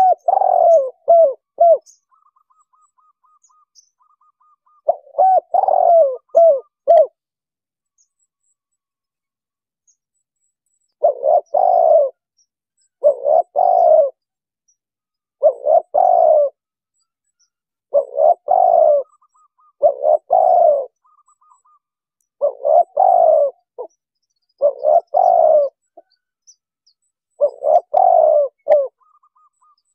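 Spotted dove (tekukur) cooing: about ten short phrases of repeated coos, each a second or so long, with gaps of one to four seconds between them. Faint rapid higher notes come in some of the gaps.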